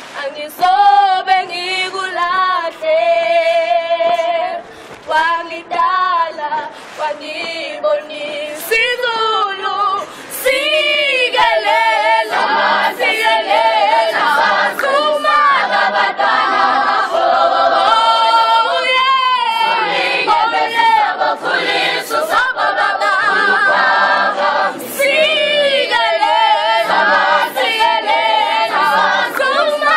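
School choir of mostly girls' voices singing a cappella. The singing is lighter and more broken at first, then the full choir sings together steadily and loudly from about twelve seconds in.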